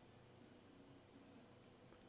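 Near silence, with very faint low held tones underneath.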